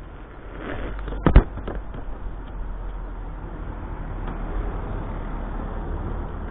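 BMX bike tyres rolling over rough concrete right past a camera at ground level, with one sharp knock about a second in. A car then drives by, a steady low rumble of tyres and engine.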